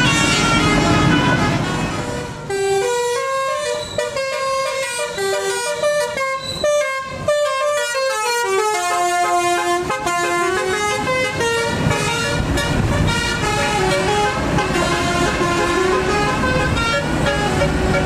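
Bus telolet horn playing a rapid tune of quick, stepped notes that jump up and down, over the rumble of bus engines and passing traffic.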